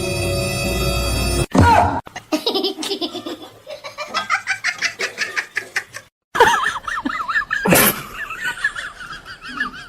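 Music stops abruptly about a second and a half in. Bursts of laughter follow, in quick pulsing runs, broken by a brief silent cut midway.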